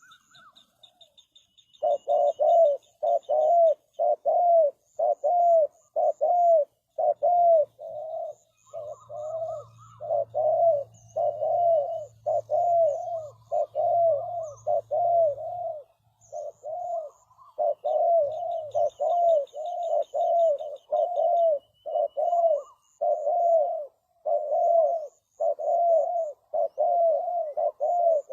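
Spotted dove cooing: a long run of short, even coos at about two a second, the lure call used for dove trapping. Faint high chirping of small birds sounds above it.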